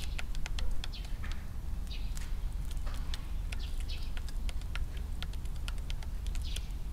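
Eurasian tree sparrows pecking at seed in a plastic tray, a rapid irregular run of light ticks, with a few short high chirps, over a steady low rumble.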